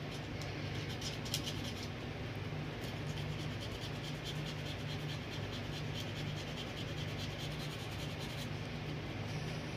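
Sandpaper rubbed back and forth over a controller circuit board, sanding the coating off the copper traces so they can take solder: quick scratchy strokes, several a second, stopping shortly before the end, over a steady low hum.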